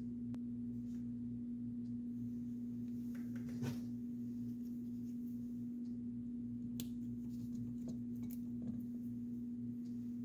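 A steady low hum throughout, with a few faint clicks of hands and a small cutting tool working at the 3D printer's hotend wiring, about three and a half seconds in and again later on.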